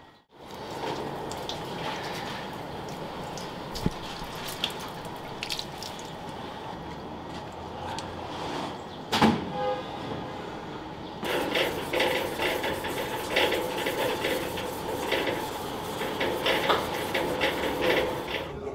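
Kitchen ambience: water running, with dishes and utensils clattering. A sharp louder clatter comes about nine seconds in, and the clattering grows busier from about eleven seconds on.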